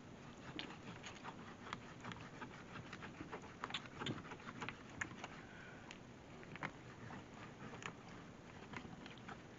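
Fillet knife sawing and cutting along the side of a catfish, giving faint, irregular little clicks and scrapes of the blade through skin and flesh.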